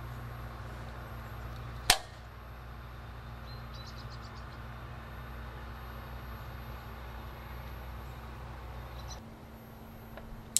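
Stihl AutoCut string-trimmer head: one sharp, loud snap about two seconds in as the nylon line is pulled hard and the spool pops up, then a few faint ticks, over a steady low hum. Another sharp click comes near the end as the line is snipped with shears.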